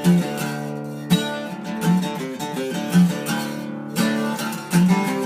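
Acoustic guitar playing a blues accompaniment between sung lines, with a plucked or strummed attack about once a second.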